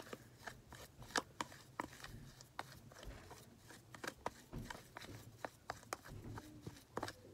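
A spoon stirring wet instant snow powder in a plastic tub: faint, irregular clicks and scrapes, a few a second.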